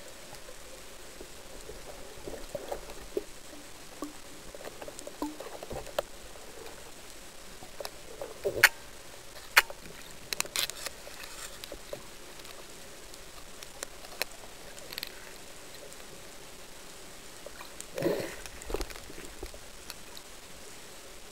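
Underwater sound through a camera housing on a speargun: a steady hiss with scattered sharp clicks and knocks from the gear, the two loudest about a second apart midway, and a muffled gurgling knock near the end.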